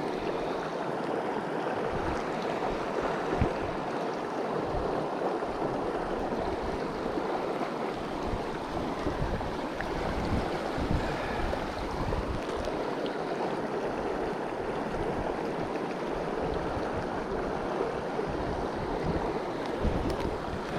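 Shallow river water running steadily over rocks, an even rushing hiss. Occasional low thumps sit underneath it.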